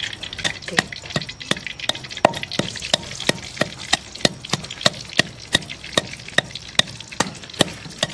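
Wooden pestle pounding whole black peppercorns in a terracotta mortar: a steady rhythm of sharp knocks, about two and a half a second.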